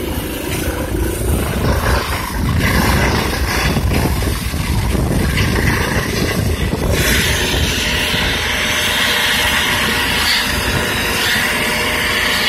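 Medical helicopter running on the ground just after landing: a loud, steady turbine and rotor noise, with a higher rushing hiss joining about seven seconds in.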